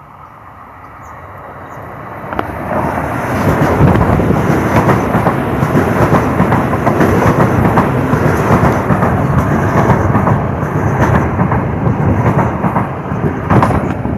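Metro-North electric commuter train approaching and passing close along the platform. It builds over the first couple of seconds into a loud, steady rumble of wheels on rail, with rapid clacking over the rail joints, then falls away near the end.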